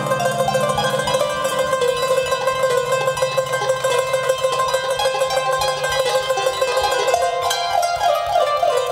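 Qanun played fast: one note rapidly re-picked in a tremolo with quick plucked notes around it, over a low held note, then quick runs of notes near the end.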